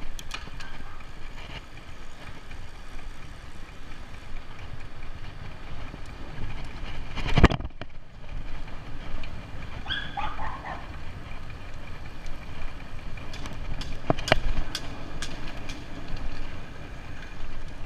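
Riding a bicycle on a paved street: wind on the microphone and tyre and road noise, with sharp knocks as the bike jolts over bumps, once about halfway through and again a few seconds later. A short pitched call cuts in about ten seconds in.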